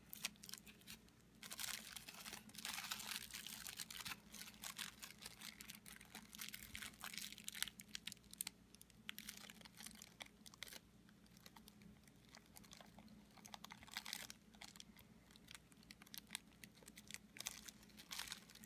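Faint crinkling and crackling of plastic bubble wrap handled by fingers as a zip tie is worked through holes punctured in it, with many small scattered clicks.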